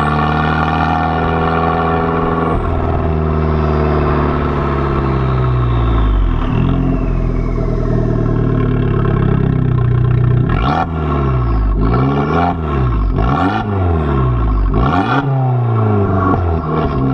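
Abarth 695 Biposto's turbocharged 1.4-litre four-cylinder, heard at its Akrapovič exhaust tip while driving: it pulls up through a gear change about two and a half seconds in, then eases off. From about ten seconds the revs rise and fall repeatedly, with several sharp bangs from the exhaust.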